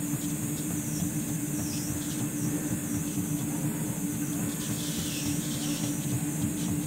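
Machine motor running steadily: an even hum with a constant pitch, under a steady high hiss.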